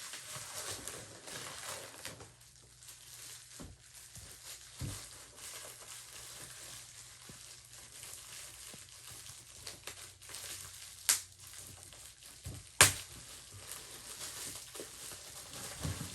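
Plastic slime packaging crinkling and rustling as it is unwrapped, with two sharp clicks about two-thirds of the way through, the second the loudest.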